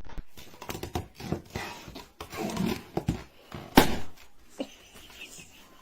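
A dog moving about, with scattered knocks and thumps and one sharp knock about four seconds in.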